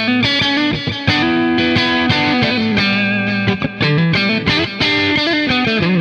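Electric guitar with copies of DiMarzio Cruiser pickups, played through an amplifier in quick picked single-note runs, several notes a second with sharp pick attacks, giving a sound test of the pickups' tone.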